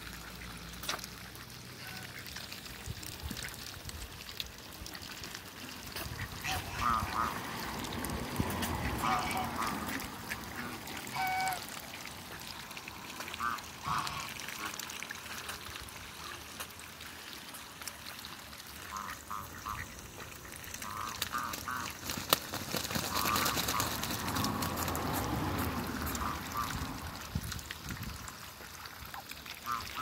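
Mixed flock of domestic ducks and geese calling in short runs of quick quacks and honks, over the splashing and slurping of bills dabbling in a shallow puddle.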